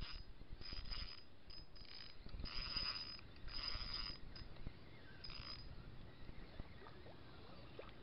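Small spinning reel (a Kenzi Destroy 1000) being cranked in short spurts while a fish that has just struck is reeled in: a string of brief whirring bursts over the first five seconds or so, then it stops.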